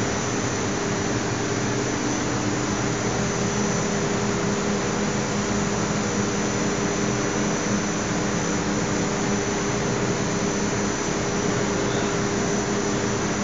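Steady machinery noise of a running biomass burner and gasifier plant: motor-driven fans and blowers running at constant speed, with a continuous low hum.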